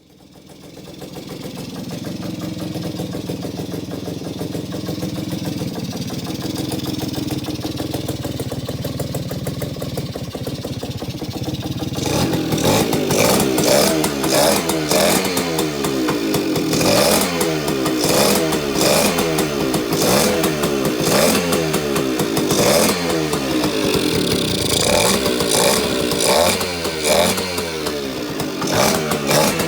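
Suzuki K50 moped's small two-stroke single-cylinder engine idling steadily, then, about twelve seconds in, revved up and down over and over, louder.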